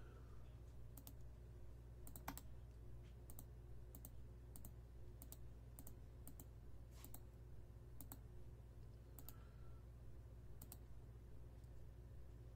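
Faint computer clicks, about one a second at uneven intervals, over a low steady electrical hum.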